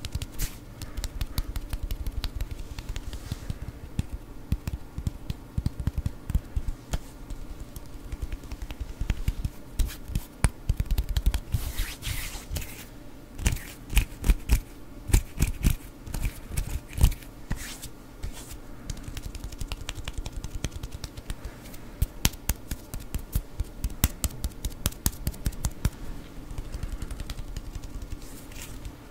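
ASMR hand sounds close to a foam-covered microphone: palms and fingers rubbing and brushing together with a dense run of dry finger clicks and plucking ticks, busiest through the middle stretch.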